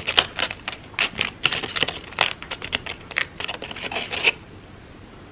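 Crepe paper petals being scrunched and worked by hand: a quick, irregular run of crinkling and crackling that stops about four seconds in.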